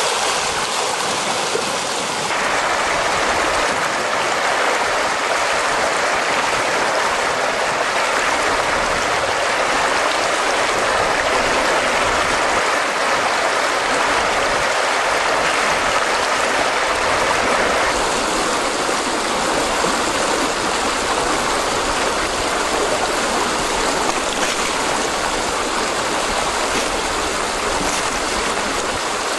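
Floodwater rushing and churning over a road and pouring into a washed-out gap in a gravel road: a loud, steady rush of water. Its tone changes abruptly about two seconds in and again about eighteen seconds in.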